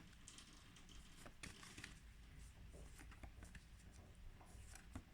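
Near silence, with faint soft rustles and clicks of phonics flashcards being handled and flipped.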